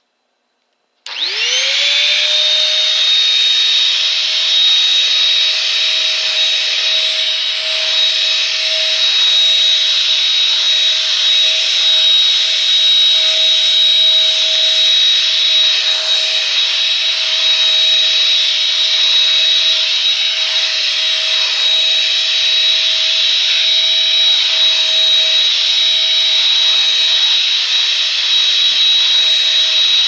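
Bissell 3-in-1 lightweight corded stick vacuum switched on about a second in: its motor spins up with a rising whine, then runs steadily with a high whine.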